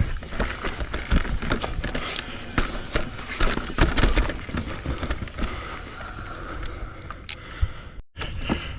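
Full-suspension Commencal mountain bike rolling over rough trail: tyres on dirt and rock with a constant rattle and many sharp knocks from the bumps. The sound cuts out abruptly near the end and then resumes.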